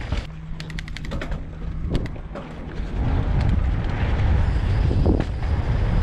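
Mountain bike riding a dirt trail: wind rushing over the microphone and a steady rumble. It quietens for a couple of seconds near the start, where a quick run of sharp clicks is heard, then comes back loud from about halfway.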